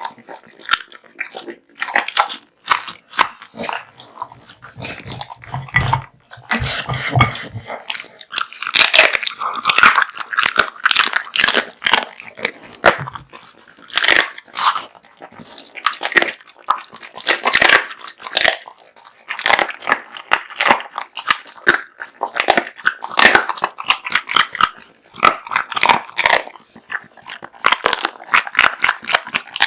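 An American Bully dog crunching and chewing through raw meat and bones, with rapid, irregular bites and cracks throughout.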